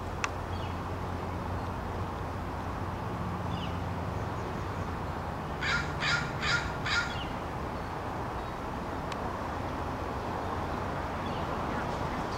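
A crow cawing four times in quick succession, about halfway through, over a steady low background hum. A brief sharp click comes just after the start.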